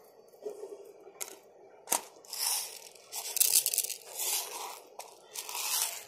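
A sharp knock about two seconds in, then bursts of rustling and rattling as dry bird feed is scattered into a plastic lid on concrete.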